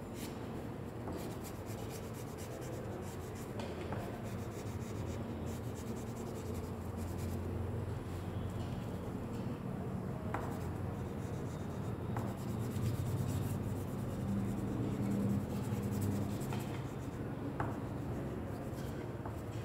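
Purple crayon rubbing and scratching on drawing paper without a break as a background is coloured in, with a few faint clicks in between.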